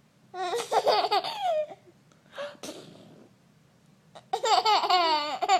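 A baby laughing: two bouts of high-pitched giggles, the first starting about half a second in and the second about four seconds in, with a short quieter sound between them.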